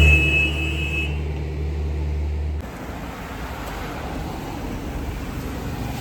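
A low, steady mechanical hum like a running engine, with a brief high two-note tone in the first second. The hum cuts off about two and a half seconds in, leaving fainter background noise.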